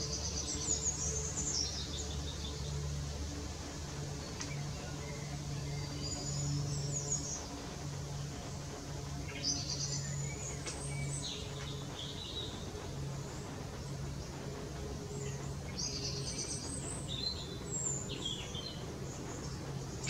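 Small songbirds singing in short, high, descending phrases of about two seconds, four times, over a steady low hum.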